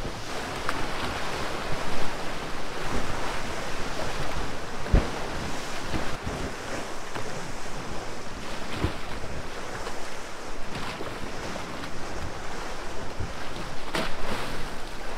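Choppy sea washing and splashing against a wooden jetty and a moored dive boat, with wind buffeting the microphone. A few dull thumps stand out, one about five seconds in, one near nine seconds and one near the end.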